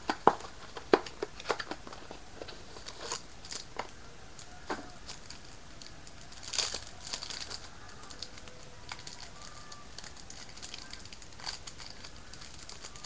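Trading-card pack wrapper crinkling and tearing as it is picked at and pried open by hand, with scattered sharp crackles, thickest in the first couple of seconds and again about six seconds in; the pack is hard to get open.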